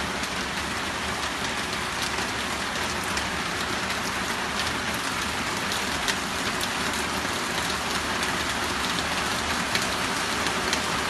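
Steady monsoon rain, with frequent sharp ticks of drops striking a hard surface close by.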